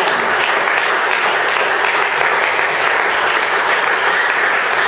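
A congregation applauding steadily, many hands clapping together.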